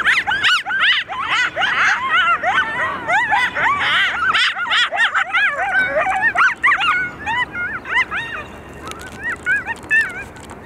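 Coyotes yipping and howling together, many quick rising-and-falling yips overlapping in a chorus, dense for the first several seconds and thinning out toward the end.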